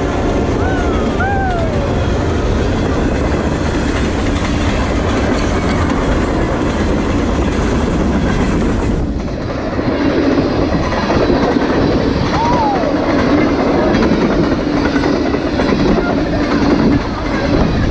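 Freight train passing close by: a steady loud rumble of railcars with wheels clacking over the rail joints, cut about halfway through to another stretch of the same kind of sound.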